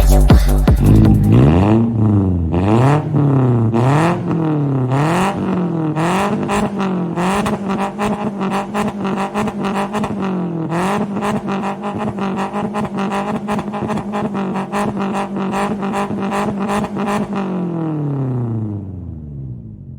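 Toyota Hiace 200-series engine through a one-off muffler with a straight mid-pipe, revved in a string of quick throttle blips, then held steady. Near the end the pitch sinks away as the engine winds down.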